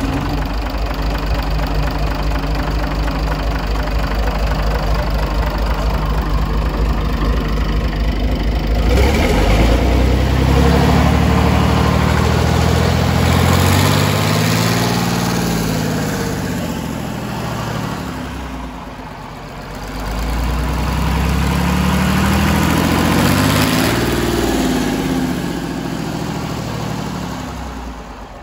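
Iveco 8210M22.10 13.8-litre naturally aspirated six-cylinder marine diesel running on a test stand. It idles steadily for about nine seconds, then is revved up and back down twice, settling lower near the end.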